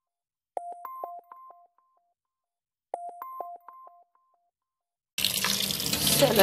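A short chiming jingle of a few notes, played twice, then about five seconds in a kitchen tap starts running hard onto raw meat in a plastic strainer over a steel sink, the meat being rinsed.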